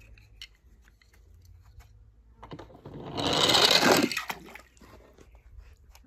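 A small die-cast toy car rolling fast down a red plastic slide: a loud rattling rumble of its wheels on the plastic that builds about two and a half seconds in and stops after about two seconds. A few light clicks of the toy being handled come before it.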